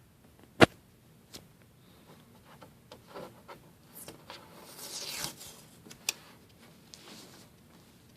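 Handling noises: a sharp click about half a second in, then a few lighter clicks and a few seconds of rustling and scraping, with another click just after six seconds.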